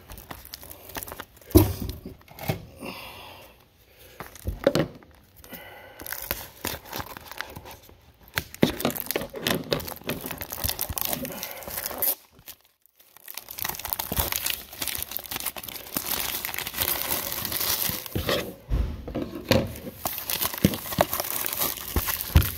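Plastic shrink wrap being torn and peeled off a trading-card booster box, crinkling irregularly, with a few sharp knocks as the box is handled. It pauses briefly about halfway, then the crinkling runs on steadier and denser.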